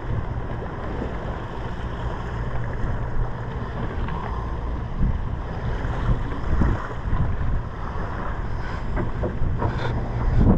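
Sportfishing boat's engine running with a steady low hum, mixed with wind on the microphone and water noise.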